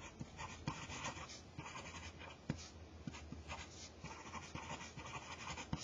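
Pen writing a short phrase on paper: a quick run of faint, scratchy strokes with a few small ticks between them.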